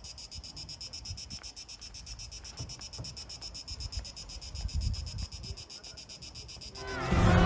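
Cicadas buzzing in a steady, fast-pulsing chorus. Near the end, music and voices cut in loudly.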